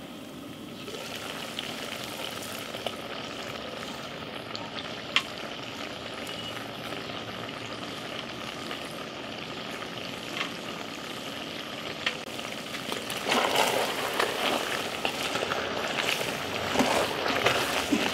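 Pork thongba stew boiling in a black pot, a steady bubbling hiss with a few sharp clicks. It grows louder and busier in the last few seconds as a wooden spoon stirs and scrapes through it.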